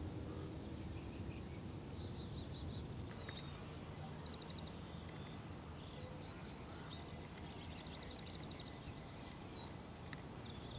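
Outdoor background rumble with a songbird singing twice, each phrase a high held note that breaks into a fast trill, and a few shorter chirps between.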